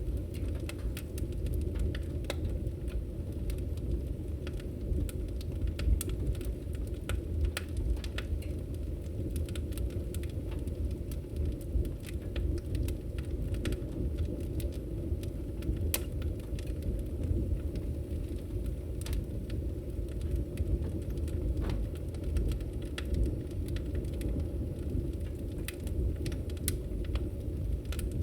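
Wood fire crackling in a fireplace: frequent irregular sharp pops and snaps over a steady low rumble of the burning fire.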